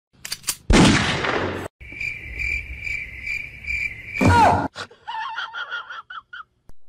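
A loud noisy burst about a second long, then a steady high chirping trill that pulses about two and a half times a second, like a cricket's. The trill ends in a short sweeping whoosh, and a brief run of pitched beeping notes follows.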